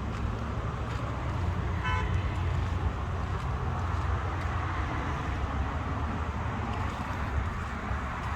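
Steady low rumble of motor vehicles, with one short vehicle horn toot about two seconds in.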